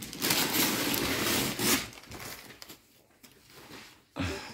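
Gift wrapping paper rustling and tearing as a present is unwrapped, loud for about two seconds, then fainter scattered rustles with a short soft bump near the end.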